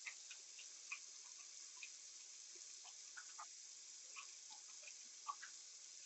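Faint, steady rush of a running bathroom tap, with a scattered handful of small, light clicks and ticks from a plastic facial cleansing brush being handled.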